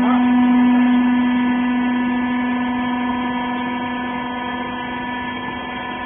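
Hydraulic baler's electric motor and pump running with a steady mechanical hum, loudest about half a second in and easing off slowly.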